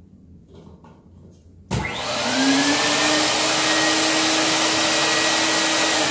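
Norvell Z3000 spray-tan turbine switched on about two seconds in, its whine rising as it spins up, then running steadily with a loud rush of air and an even whine above it.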